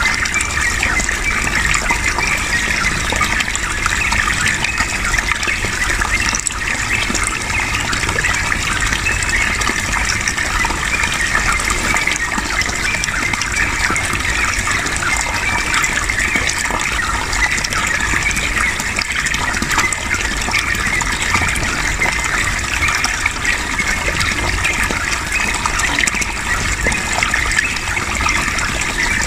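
Flowing water running steadily, a continuous splashing rush with no breaks.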